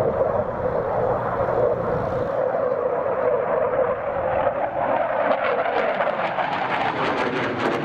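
Jet noise from a JF-17 Thunder's single Klimov RD-93 turbofan as the fighter flies its display: a steady rushing sound. About five seconds in it turns harsher and crackling, with a tone gliding down in pitch as the jet passes.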